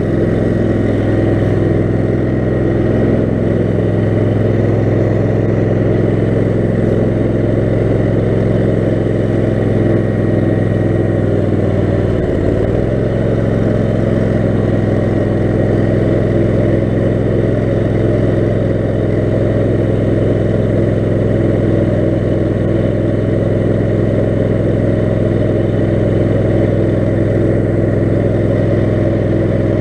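Kohler 18 HP Command engine of an off-road lawn mower running steadily, with a brief dip in engine speed about twelve seconds in.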